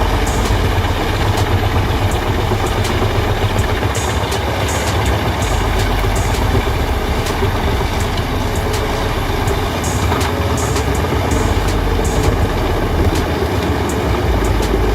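Truck-mounted wood chipper on a MAN truck, running steadily with a heavy diesel rumble and a dense mechanical din, with scattered sharp ticks on top.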